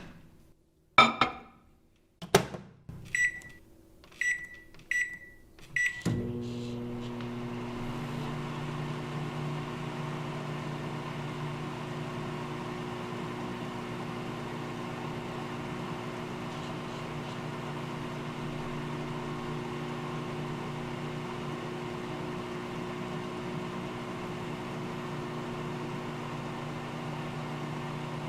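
Microwave oven being set and started: two clunks, then four short high keypad beeps about a second apart. On the last beep the oven starts running with a steady low hum and a faint fan rush.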